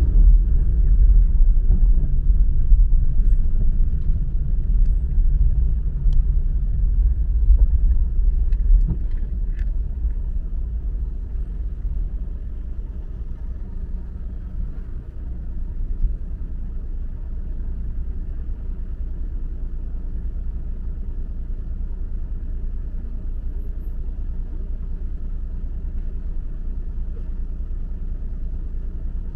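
A car driving on city streets, its low road and engine rumble heard from the moving car. The rumble is louder through the first part, then eases to a quieter, steady level from about halfway through.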